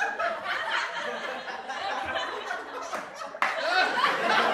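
People laughing and exclaiming while ice water splashes from a cooler over a man's head. There is a sudden, louder outburst about three and a half seconds in.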